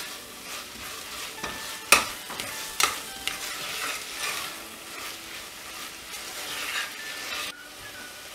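Chicken and onion masala frying in a stainless steel pressure cooker, sizzling while a metal spoon stirs and scrapes the pan. The spoon clinks sharply against the pot about two seconds in and again a second later, and the stirring stops near the end.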